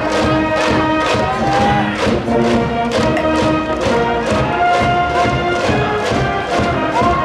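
Brass band and drums playing a cheering tune, horns holding long notes over a steady drum beat of about two strokes a second.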